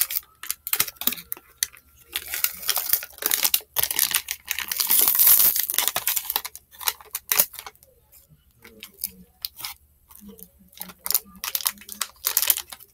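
Hershey's milk chocolate with almonds bar being unwrapped: the wrapper tearing and crinkling in quick crackles, loudest and densest through the middle, then thinning to scattered crinkles near the end.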